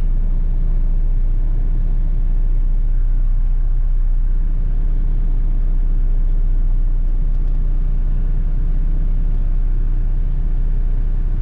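Heavy tow truck's diesel engine running steadily under load, heard from inside the cab as it drives slowly over rough ground towing a semi tractor, with a constant low drone.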